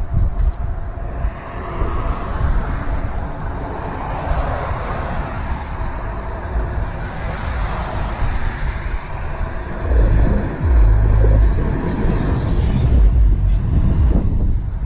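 Wind rumbling on a helmet camera's microphone during an e-bike ride, in heavy gusts from about ten seconds in. Underneath is road and traffic noise that swells and fades through the middle.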